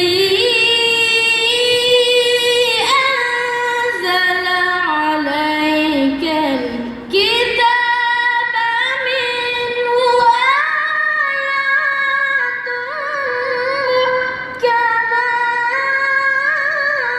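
A boy's high voice reciting the Quran in a melodic, drawn-out chant, holding long notes with wavering ornaments. There are short breaths between phrases about seven and fifteen seconds in.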